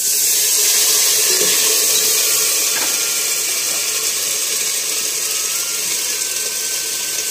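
Masala (spice paste) sizzling hard in hot oil in a steel pot, a loud steady hiss that starts suddenly as it goes in and eases a little toward the end.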